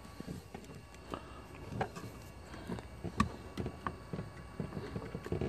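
Small clicks and rustling handling noises, with one sharper click about three seconds in: scissors working at the tail of a plastic zip tie, which proves hard to cut this way.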